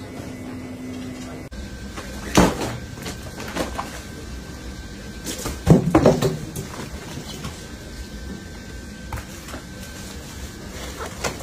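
Knocks and thumps of whole sea bream and ice being handled out of a polystyrene box onto a counter, loudest once about two and a half seconds in and in a quick cluster around six seconds in, with smaller knocks after. A faint steady high hum runs underneath from about a second and a half in.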